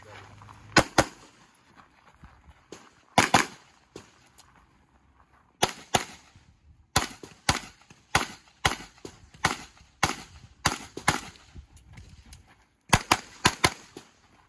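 Competition handgun shots: pairs of quick shots at first, then a string of single shots about every half second, then another quick cluster near the end, with gaps of a second or two between groups.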